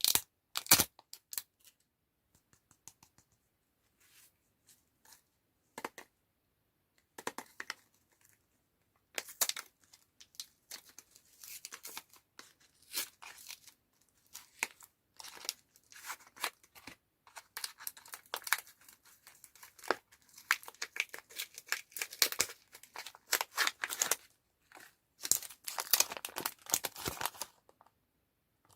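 Candy packaging being torn open and crinkled by hand. Scattered small clicks and rustles come first, then almost continuous crackling and tearing from about nine seconds in until near the end.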